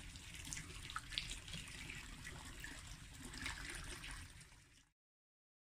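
Hot spring water trickling and splashing with small irregular drips, fading out near the end and then cutting to silence.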